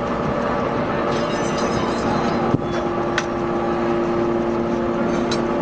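Hydraulic scrap metal baler running with a steady hum over noise, with one sharp clank about two and a half seconds in and a lighter click just after.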